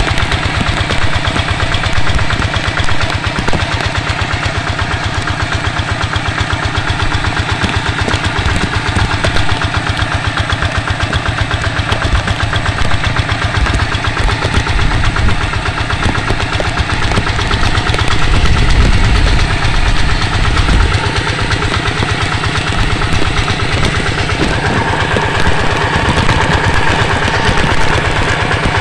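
Two-wheel hand tractor's single-cylinder diesel engine running steadily while under way, a fast, even chugging. In the last few seconds a higher-pitched tone joins in.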